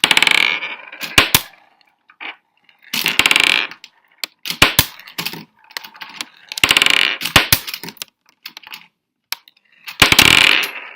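Small metal balls clattering and rattling against the plastic parts of a small Lego Technic great ball contraption. The noise comes in four loud bursts about three seconds apart, with sharp single clicks between.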